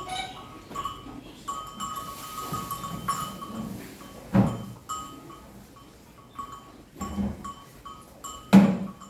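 Farm livestock calling: several short calls a few seconds apart, the loudest near the end, over a faint steady high tone.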